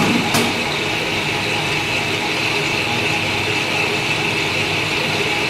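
Lathe running steadily with a constant mechanical hum and a band of high-pitched whine, and one sharp click shortly after the start.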